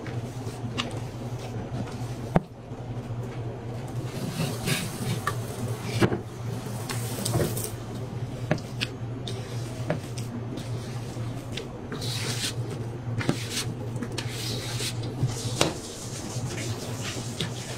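Large stainless steel mixing bowl knocking and scraping on a stainless steel worktable as crumbly dough is tipped and scraped out of it, with sharp metallic clunks every few seconds. A steady low hum runs underneath.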